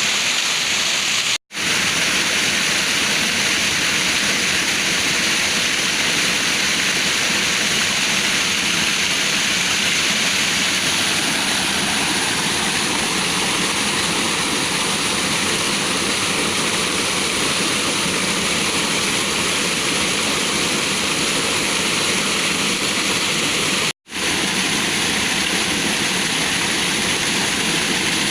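Waterfall water rushing in a steady hiss, cutting out to silence for an instant twice.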